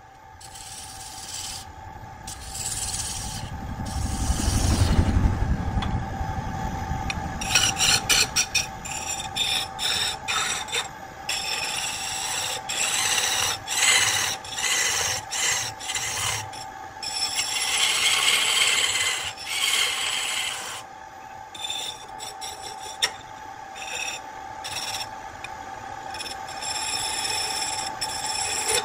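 Wood lathe spinning a wooden spindle while a hand-held turning chisel cuts it. A scraping hiss of shavings comes and goes with each pass of the tool, over a steady hum.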